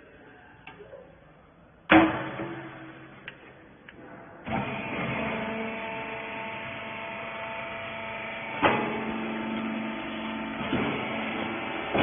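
A loud metal bang with a ringing decay, a few light clicks, then a baler's hydraulic power unit starts and runs with a steady multi-tone hum, marked by a couple of sharper knocks.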